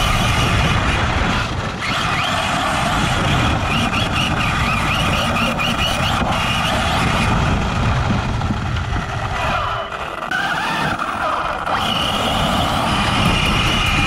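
An Arrma Mojave RC truck heard from on board as it drives over grass: the electric motor and drivetrain whine, rising and falling in pitch with the throttle, over a steady rumble from the tyres and chassis.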